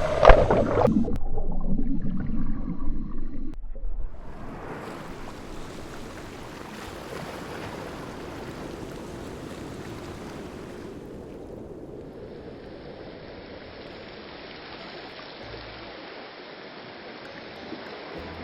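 Lake waves washing onto the shore, a steady rushing noise. It is louder and busier in the first four seconds.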